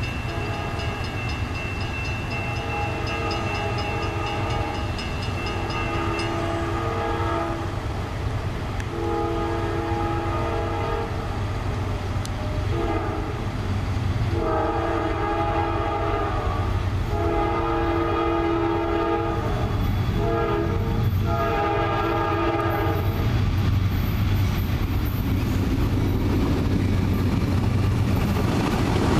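Norfolk Southern freight diesel locomotive's multi-tone air horn sounding the grade-crossing signal, long blasts broken by two short ones, over the steady low rumble of the engine. The rumble grows louder near the end as the locomotive draws close.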